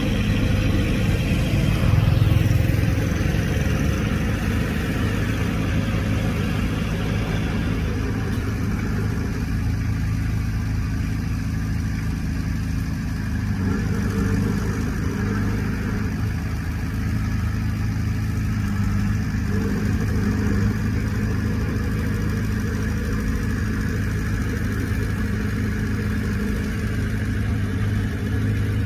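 Heavy earthmoving machine's diesel engine running steadily under load, a little louder about two seconds in.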